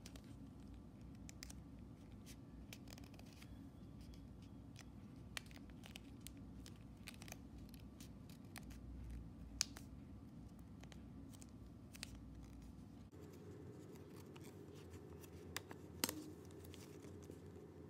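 A sheet of origami paper being folded and creased by hand: faint paper crackles and ticks, with two sharper snaps, one about halfway and one near the end, over a faint low background hum.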